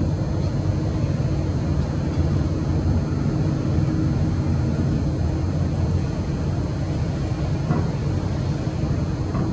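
Steady low engine rumble with no change in level.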